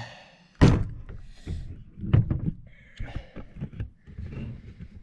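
A sharp thump about half a second in, followed by scattered knocks, clicks and brief rustles.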